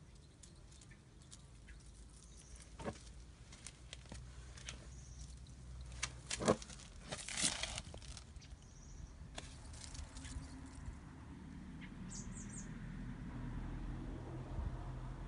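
Faint rustling with scattered clicks and crackles, louder around six to eight seconds in, and a quick run of four high squeaks about twelve seconds in.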